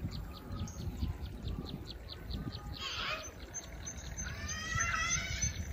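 Birds calling: a fast run of short, high chirps about four or five a second, a louder call about three seconds in, and a longer, fuller call a second before the end, over a steady low rumble.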